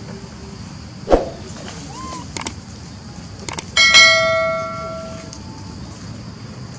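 Subscribe-button sound effect: two quick double mouse clicks, then a bell chime about four seconds in that rings and fades over a second or so. A short sharp sound comes about a second in.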